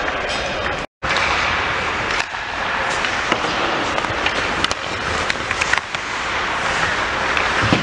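Hockey rink game sound: skates scraping on the ice and sharp clacks of sticks and puck over a steady arena wash. The sound drops out completely for a moment about a second in.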